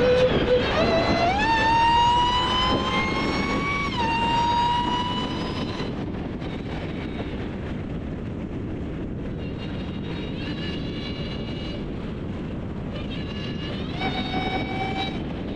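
Hellcat's supercharged 6.2-litre HEMI V8 under acceleration, its supercharger whine climbing in pitch for a few seconds, dropping a step at a shift about four seconds in, then fading as the car cruises. A steady whine returns near the end.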